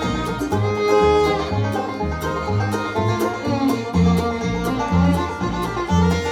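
A band playing an instrumental tune in a bluegrass style, with a steady beat and a bass line alternating between two low notes under sustained and sliding melody lines.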